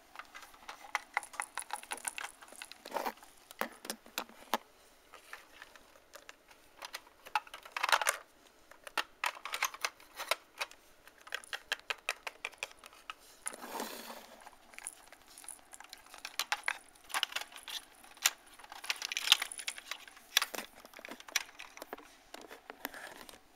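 Hard plastic toy figurines and a plastic toy car being handled: an irregular string of sharp clicks, taps and rattles, with a couple of short scrapes.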